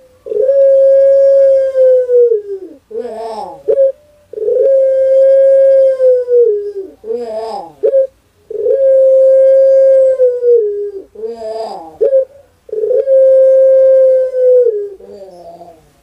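Caged ringneck dove cooing: four times over it gives a long held note that sags in pitch at its end, each followed by a short tumbling phrase that falls away.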